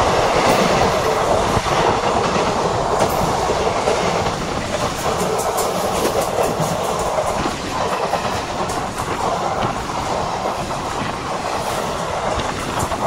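Coaches of a passenger express train running past on the next track, their wheels clattering steadily over the rail joints with a close, rushing rumble that eases slightly in the second half.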